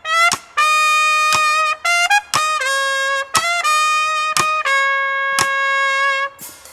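Solo trumpet playing an unaccompanied opening phrase of separate tongued notes, several held for about a second, with short gaps between them.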